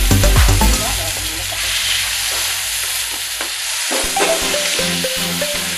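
Broccoli, carrots and garlic sizzling in a hot wok while a wooden spatula stirs them around. Background music drops out about a second in and comes back near the end.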